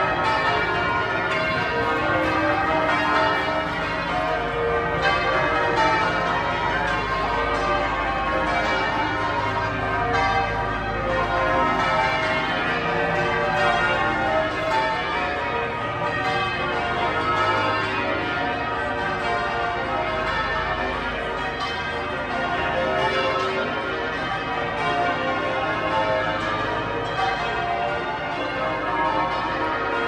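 Change ringing on St Paul's Cathedral's ring of twelve church bells, a continuous, dense peal of many overlapping bell strikes at different pitches.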